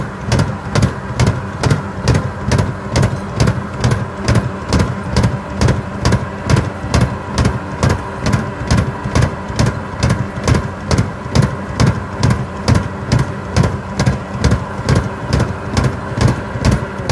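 Farm tractor engine running steadily under load while a tractor-driven rotary soil mulcher churns the ground behind it, with a regular knocking about two to three times a second.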